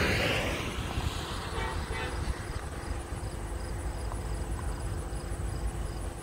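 A car passing on the highway, its tyre and road noise fading away over the first second, followed by a brief distant horn about one and a half seconds in.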